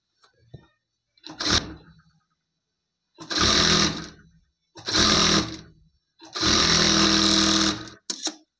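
Industrial-style sewing machine stitching in stop-start bursts: a short run about a second and a half in, then three longer runs of about a second each, and a quick final spurt near the end. There are faint taps near the start as the fabric is handled.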